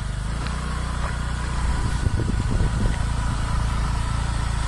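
Motor scooter being ridden, its engine running steadily under a loud rush of wind on the microphone.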